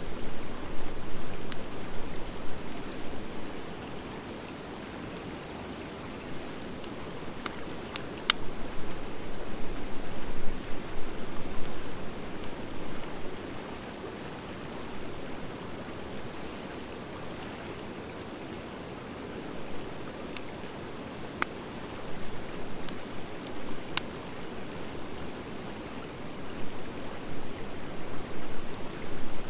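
Wood fire of driftwood and dry hardwood logs burning with a steady rushing crackle that swells and fades in waves. A few sharp pops stand out, two close together about a third of the way in and a couple more later.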